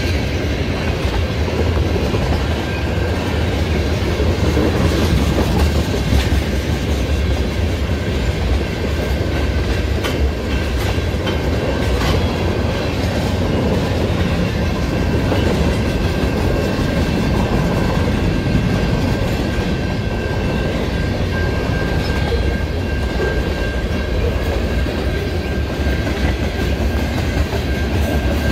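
Freight train cars (tank cars, gondolas and covered hoppers) rolling past close by: a steady heavy rumble of steel wheels with clickety-clack over the rail joints. A thin, steady high tone runs through it.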